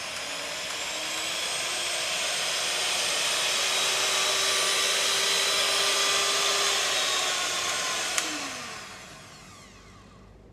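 Electric hand mixer's motor running with a steady whine, rising over the first couple of seconds as it spins up. About eight seconds in a click as it is switched off, and the motor winds down and fades.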